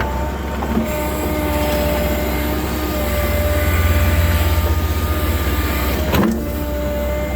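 Case 580 Super N backhoe's diesel engine running with a steady hydraulic whine over a deep rumble, swelling louder about four seconds in. There is a single sharp knock about six seconds in.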